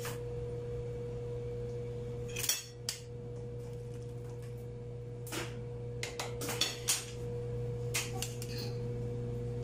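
A metal spoon clinks and scrapes against a ceramic soup bowl in short, scattered knocks as soup is ladled in and stirred, with several clinks in quick succession past the middle. A steady low hum runs underneath.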